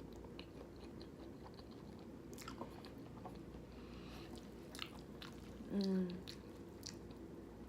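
Close-miked mouth sounds of someone eating a creamy pasta: soft, scattered chewing clicks and smacks. About six seconds in there is a short hum from the eater.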